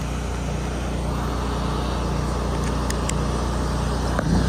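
Pressure washer rig's engine running steadily, with a couple of light ticks about three seconds in and a short knock near the end.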